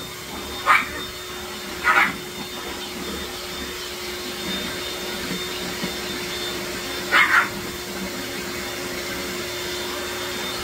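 Electric hand mixer running steadily, its beaters whipping the white divinity candy mixture in a glass bowl. A small dog yips a few times over the motor, with a quick double yip a little past the middle.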